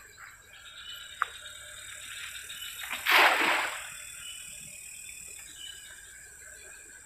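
A cast net lands on the river with a single splash about three seconds in, over a steady high-pitched night chorus.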